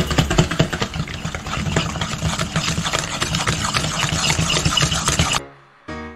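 A fork beating eggs in a stainless steel bowl: a rapid, steady clatter of metal tapping on metal, which cuts off about five seconds in and gives way to a few keyboard notes of background music.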